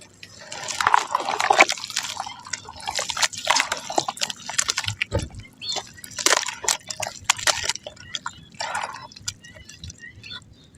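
Water poured and dripping onto soft mud: irregular wet splashing and sloshing with crackling as the mud soaks and crumbles, loudest in the first half.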